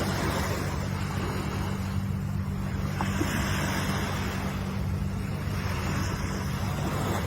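Ocean waves washing onto shore in a steady surf that swells and eases, over a steady low hum.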